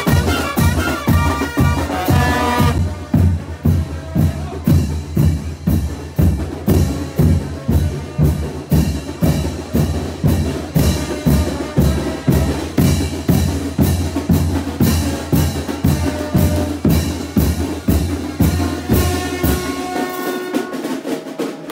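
Mexican brass band playing chinelo dance music, with a steady bass-drum beat and a strong bass line. The brass melody is strong at the start, drops back to mostly drums and bass through the middle, and returns near the end.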